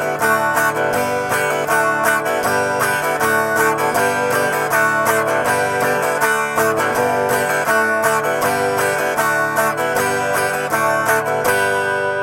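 Acoustic guitar strummed at a quick, even tempo in a down, down, open pattern, changing between G and D chords, with the open strings sounding on each change. The strumming stops near the end and the last chord rings out and fades.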